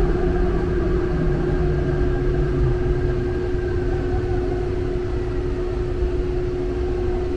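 Seoul Subway Line 5 train running: a steady low rumble with a constant hum.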